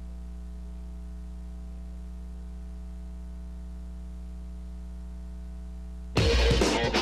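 Steady low electrical hum with a few faint fixed higher tones. About six seconds in, loud electronic music with a heavy beat cuts in suddenly.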